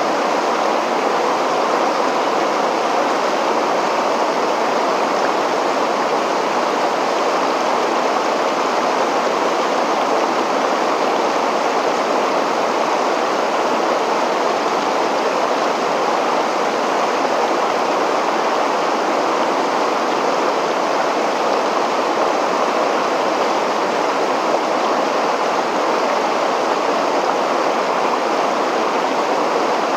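River water pouring over a weir and churning into a foaming standing wave: a loud, steady rush that does not change.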